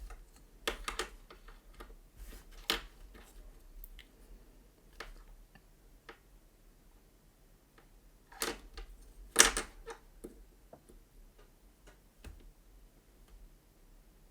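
Small ultrasonic sensor boards and their plastic bags being handled on a desk. There are scattered clicks, taps and short rustles, with the sharpest one about two-thirds of the way in.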